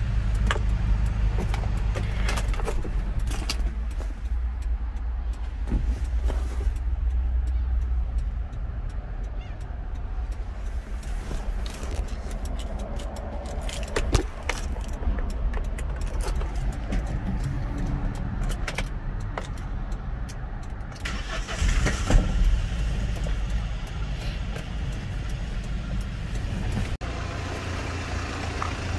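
A Hyundai Porter II cargo truck's diesel engine running at idle, a steady low rumble, with scattered clicks and knocks from handling inside the cab, a sharp knock about halfway through and a louder one a little later.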